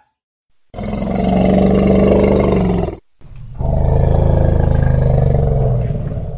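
African elephant giving two long, deep roars, each about two and a half seconds, with a short break between them.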